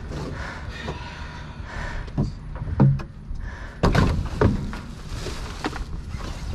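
Several knocks and thuds of junk being handled and set down, the loudest about four seconds in, over a steady low rumble.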